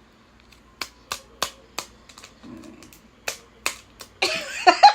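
Sharp, separate plastic clicks and taps, about six over three seconds, from a small glitter container being handled and opened out of its packaging. Laughter starts near the end.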